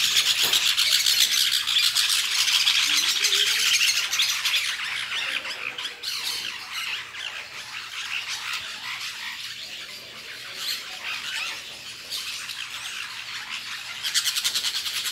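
A flock of green parakeets screeching and chattering together in dense, rapid calls, loudest over the first few seconds, then thinner, with a loud burst of calling again near the end.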